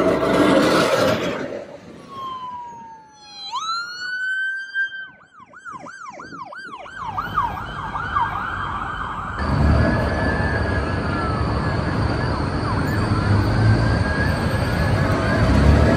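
Police sirens: a wail that dips and climbs back up, then a fast up-and-down yelp, and from about halfway through several sirens wailing over each other above a loud engine and road rumble. At the start a semi-tractor truck passes close by, a loud rush of engine and tyre noise.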